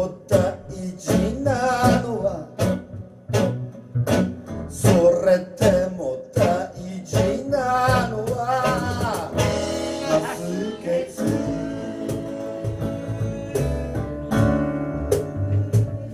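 Live band playing an instrumental stretch of a song: strummed acoustic guitars, upright bass, drums and saxophone. Sharp drum hits in the first half give way to longer held notes in the second half.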